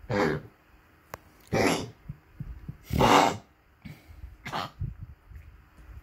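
Small dog coughing in four harsh bursts, about one and a half seconds apart.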